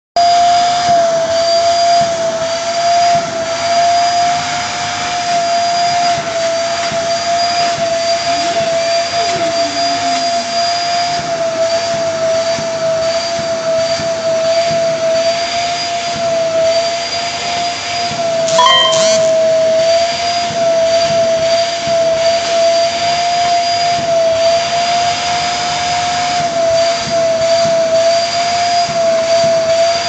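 Vacuum cleaner running steadily with a constant high-pitched whine, its hose nozzle held against a basset hound's coat. A brief knock comes about two-thirds of the way through.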